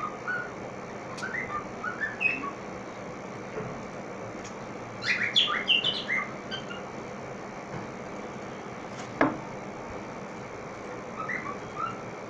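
Pet bird whistling short chirpy notes in four bursts, mimicking the WhatsApp notification tone, the burst in the middle the loudest. A single sharp click about nine seconds in.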